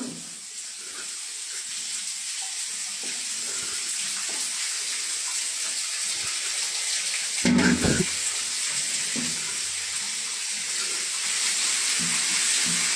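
Shower head spraying water onto a tiled shower floor: a steady hiss that grows gradually louder. There is a brief low sound about seven and a half seconds in.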